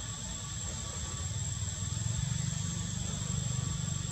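Steady outdoor ambience: a low rumble that swells a little about halfway, under a thin, steady high-pitched whine.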